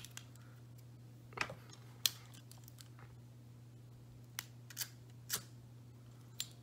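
Several short, sharp clicks of small metal keychain trinkets being handled and tried out in the hands, over a steady low hum.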